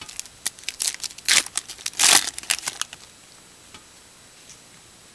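Trading-card pack wrapper torn open and crinkled by hand: a quick run of crackles with two longer rips in the first three seconds.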